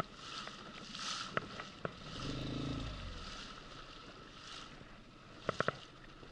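Faint water and air noise around a small inflatable boat drifting on calm sea, with a thin steady high tone underneath and a few sharp clicks, three in quick succession near the end.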